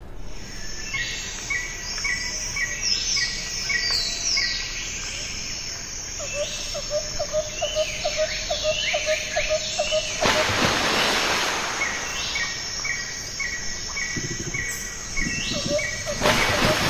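Birds chirping and calling in quick repeated phrases, with a run of rapid, lower chirps about six seconds in and again near the end. Two swells of rushing noise, one about ten seconds in and one near the end.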